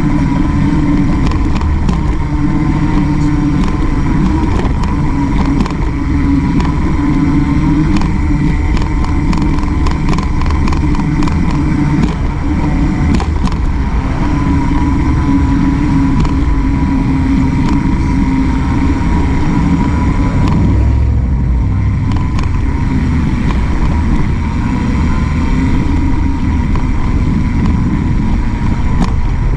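A Walmart CarbinX mountain bike rolling along a concrete sidewalk, heard from the handlebars: a steady hum whose pitch drifts a little with speed, scattered clicks and rattles, and the rumble of traffic passing on the road alongside.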